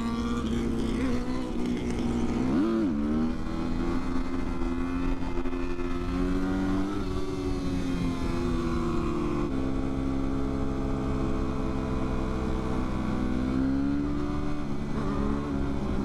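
Motorcycle engine running at a steady, moderate speed, its pitch drifting slowly up and down, with one brief rev about three seconds in.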